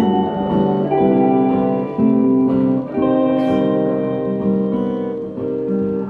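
Acoustic and electric guitar playing chords together in a live band intro, the chord changing about once a second.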